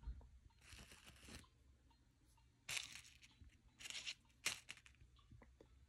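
Faint rustling and crinkling in several short bursts as a small plastic toy figurine is brushed over artificial grass and set down on a paper card.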